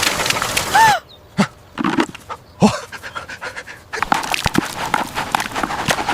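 A dog whines once in a short rise-and-fall, then pants in a few short breaths. A steady noisy hiss with light ticks fills the first second and comes back from about four seconds in.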